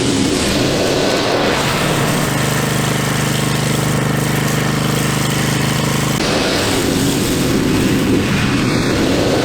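Riding zero-turn lawn mower running while mowing: a steady engine and cutting-deck noise, with a steadier droning engine note from about two seconds in that drops away about six seconds in.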